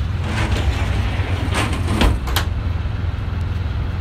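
Small passenger ferry's engine running, a steady low rumble, with a few short sharp clicks and knocks about one and a half to two and a half seconds in.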